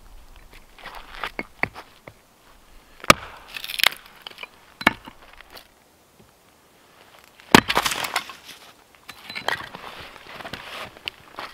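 A small vintage axe chopping and splitting wood for kindling: several sharp chops into the wood, the loudest about seven and a half seconds in, with the wood crackling and splitting between strikes.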